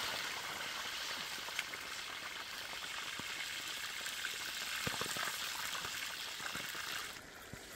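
A large pork joint deep-frying in a wok of hot oil: a dense, steady sizzle with scattered crackling pops, falling away about seven seconds in.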